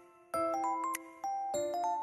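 Light, cheerful background music: a melody of quick, short stepped notes over held tones, pausing briefly at the start before the notes pick up again.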